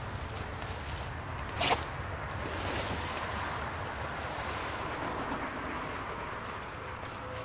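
Rustling and scraping as a body is dragged across the ground and into leafy bushes, over a steady low rumble. One short sharp sound stands out about two seconds in.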